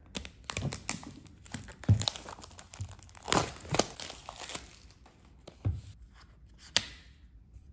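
Cardboard watch box being unwrapped by hand: plastic wrapping crinkling and the box's paper pull-tab strips tearing, in irregular rustles. A thump about two seconds in is the loudest sound, and a sharp click comes near the end.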